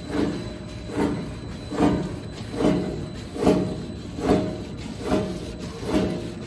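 Dough forming and pillow-pack flow-wrapping machine running, with a regular cycle of mechanical pulses a little more than once a second over a steady machine hum.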